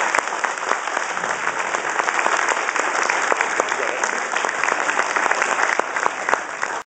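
Audience applauding: many hands clapping at a steady level, cut off suddenly at the very end.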